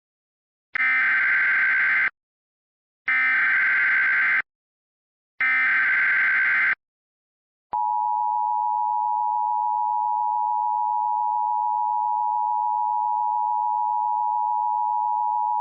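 Emergency Alert System header: three short bursts of digital data tones, each about a second and a half long with short gaps between. After them comes the steady two-tone EAS attention signal, starting about halfway through and holding unchanged.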